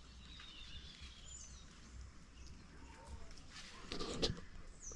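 Birds chirping with short, thin calls, and a brief rustling noise about four seconds in.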